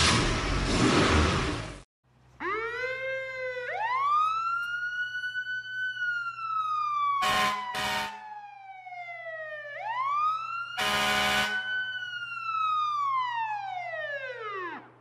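Fire truck siren sound effect wailing, rising and then slowly falling twice. Three short harsh blasts cut in around the middle. It is preceded by a loud rushing noise that stops abruptly about two seconds in.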